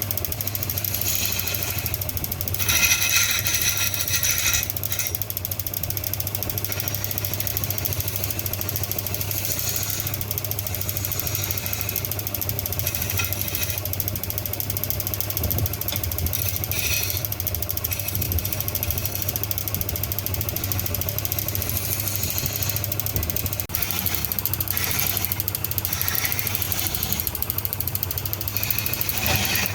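Workshop machinery running with a steady low hum. Louder bursts of higher-pitched noise come about three seconds in and again near the end.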